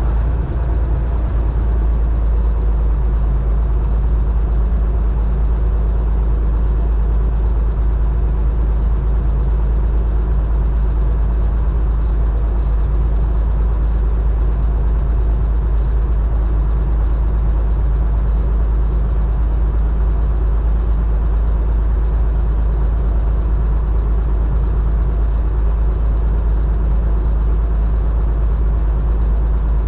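Combine harvester running steadily while harvesting corn: a loud, unbroken engine drone with a heavy low rumble.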